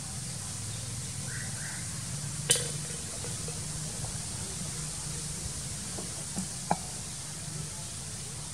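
Steady background hum and hiss, with one sharp click about two and a half seconds in and a few faint ticks later on.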